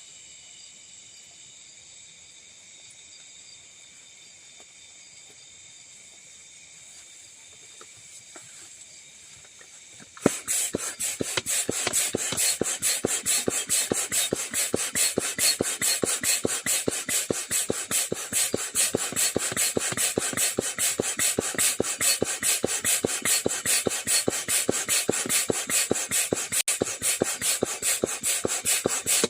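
Faint steady high-pitched insect chorus, then, about ten seconds in, a long run of fast, even rasping strokes on wood, several a second, much louder than the insects.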